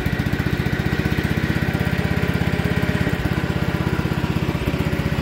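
Planet Junior walk-behind garden tractor's Toro engine running steadily, with a fast, even beat.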